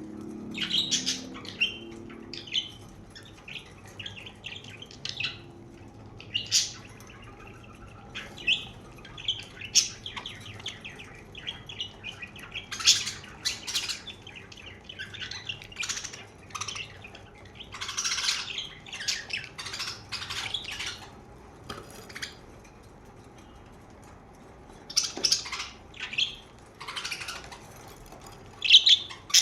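Pet budgerigars chirping and squawking in short, irregular bursts of chatter, some calls sharp and loud.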